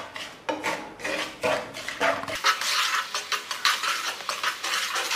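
Wooden spatula stirring and scraping in a pan of thick, bubbling sugar syrup, a quick irregular run of scrapes and clicks as the syrup boils down.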